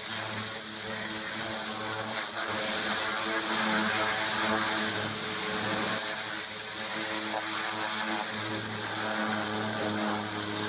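High-pressure water jet hissing steadily as it blasts caked mud off a tank's hull and tracks, over the even drone of an engine running.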